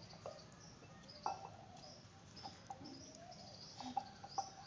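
Faint scattered bird chirps in the background, with a few light clicks of a metal crochet hook against a knitting needle while working wool stitches.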